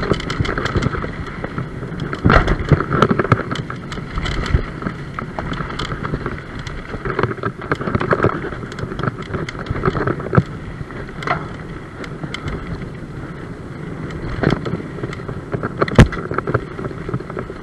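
Mountain bike riding fast down a dirt forest trail: continuous rush of wind and tyre noise with frequent rattles and knocks as the bike jolts over bumps, the sharpest knock about sixteen seconds in.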